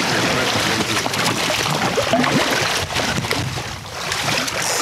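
Sea water rushing and splashing against the side of a boat hull.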